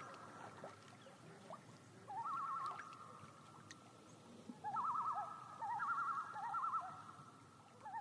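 Common loons giving tremolo calls: bouts of rapid, quavering notes, one about two seconds in, several overlapping ones through the middle, and another starting at the very end.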